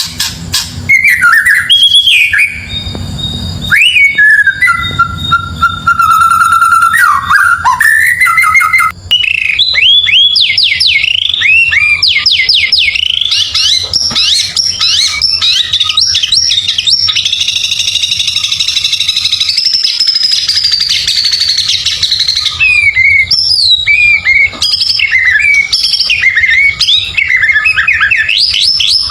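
White-rumped shama singing a loud, varied song of clear whistles, quick rising chirps and trilled phrases, with a long run of fast chirps in the middle.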